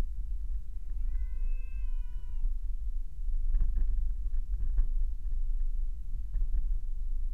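Car driving along a road, heard from inside the cabin: a steady low road rumble, with a long high-pitched wail about a second in and a few light knocks midway.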